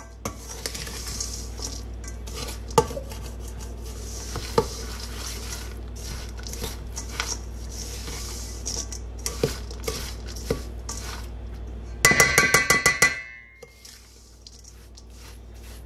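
Metal spoon stirring a sticky granola mixture in a stainless steel mixing bowl, scraping and clicking against the sides. About twelve seconds in comes a quick run of loud, ringing metal clinks, then the stirring goes quieter.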